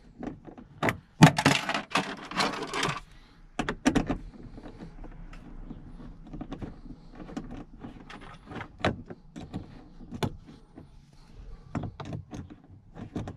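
A 7mm socket on a short extension clicking and tapping against a trim bolt as it is turned by hand to take the bolt out. The clicks are scattered, with a quick run of them from about one to three seconds in.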